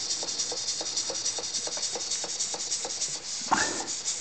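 Model Elmer Verburg mine engine running on compressed air, its exhaust chuffing at an even three to four beats a second over a steady hiss of air leaking from the still unsealed engine. A brief louder rising sound comes about three and a half seconds in.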